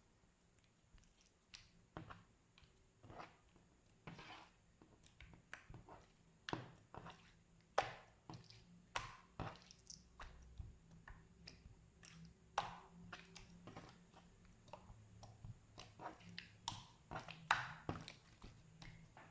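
Slime being pressed and worked by hand, giving irregular sticky pops and clicks, sometimes singly and sometimes in quick clusters.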